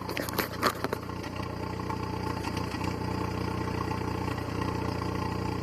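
Volkswagen Gol G5 engine idling steadily, with a few sharp knocks in the first second. The owner reports an irregular noise at idle that comes with jolts and dropping revs; one shop blamed the hydraulic lifters, another a cracked ignition coil and a worn throttle body.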